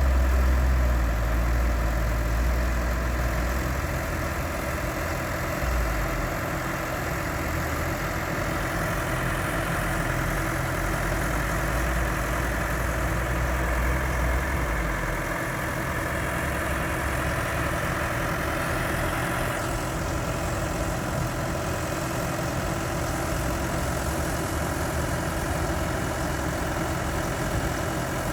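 Heavy diesel engine of earthmoving machinery running steadily at idle. A deep low rumble is strong for about the first fifteen seconds, then falls away, leaving a lighter, steady engine hum.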